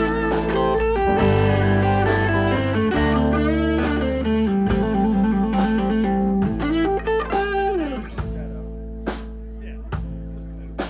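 Blues-rock band playing an instrumental break: electric guitar lead with bent and sliding notes over bass guitar. The band thins out and gets quieter over the last few seconds, with a few single drum hits.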